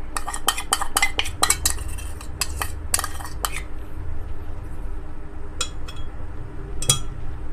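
Spoon clinking and scraping against a container and a glass blender jar as fresh cream is scooped into the jar: a quick run of clicks for the first three and a half seconds, then a few single clicks, over a low steady hum.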